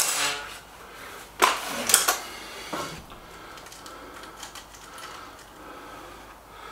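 Stoeger RX20 S2 underlever air rifle: the ringing tail of a shot at the very start, then a few loud metallic clacks about a second and a half in as the underlever is worked to cock the spring. Small handling clicks follow.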